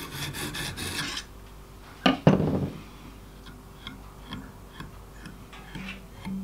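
Lansky medium (green) hone stone stroked quickly back and forth along a clamped fillet knife edge, a rough scraping that stops after about a second, while a burr is being raised on the edge. Two sharp clacks follow about two seconds in as the hone is laid down, then a few faint light ticks.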